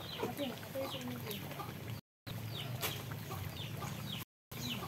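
Chickens clucking, with short high chirping calls repeating several times a second, broken by two brief gaps of silence.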